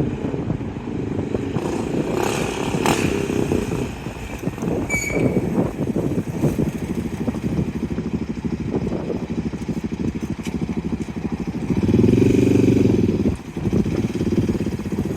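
Honda TRX700XX ATV's single-cylinder 700cc engine with Yoshimura exhaust running, with a rapid pulsing exhaust note. A louder rev rises about twelve seconds in and drops off sharply a second or so later.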